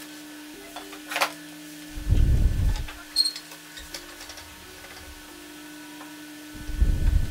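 Small hardware and a hardwood block handled on a wooden workbench: a click, a faint metallic clink, and two dull wooden handling noises, about two seconds in and near the end, over a steady low hum.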